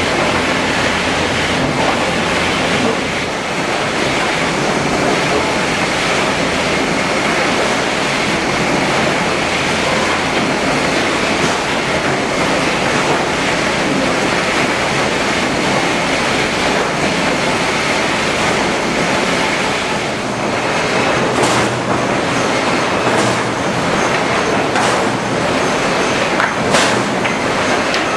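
HewSaw R200 chipper-canter sawing line running: a loud, steady mechanical din with a high whine. Several sharp knocks come in the last seven or eight seconds.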